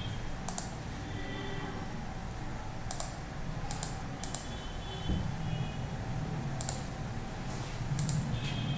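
Computer mouse buttons clicking about six times, unevenly spaced and some in quick pairs, over a steady low hum.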